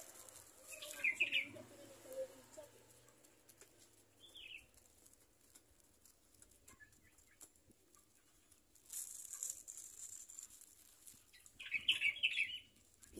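Young puter doves pecking millet out of a plastic bag, with faint pecking clicks and crinkles of the bag and short high chirps about a second in, at four seconds and near the end.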